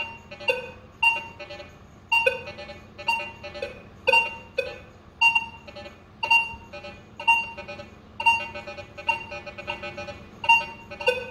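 Minelab Vanquish 540 metal detector giving audio signals as its coil sweeps over a coin-among-nails test board, about two a second. A higher-pitched beep is mixed with lower iron tones from the nails, with iron audio on in coin mode.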